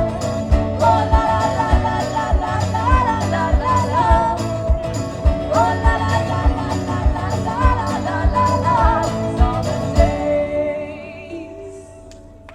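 Live band music: a wavering melody over a steady drum beat of about two beats a second, which stops about ten seconds in, leaving a held chord ringing and fading out as the song ends.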